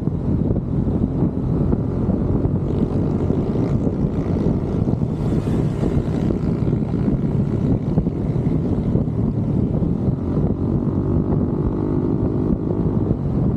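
Motorcycle engine running at a steady cruising speed while riding, with wind rushing over the microphone.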